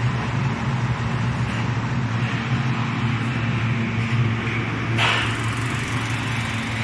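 Forced-air gas heater's fan running with a steady low hum; about five seconds in a hiss suddenly joins it as the gas burner ignites after the pre-ventilation.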